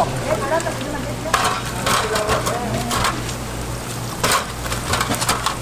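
Metal cooking utensils knock against pans several times, over a faint frying sizzle and a steady low hum.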